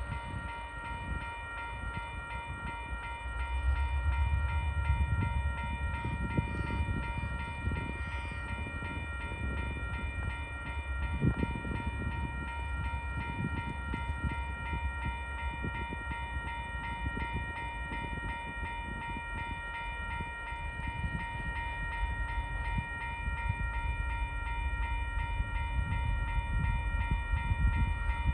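Level crossing warning bell ringing steadily as a coal train approaches. Underneath is a low rumble from the approaching train that swells about four seconds in and again near the end.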